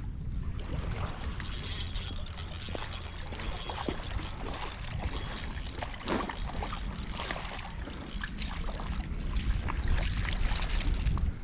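Wind buffeting the microphone, over irregular water splashing as a hooked striped bass thrashes at the surface close to the shore.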